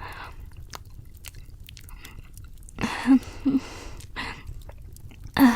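Close-miked chewing and mouth sounds: soft wet clicks and smacks of someone eating, with two short hummed "mm" sounds about three seconds in and a breath near the end.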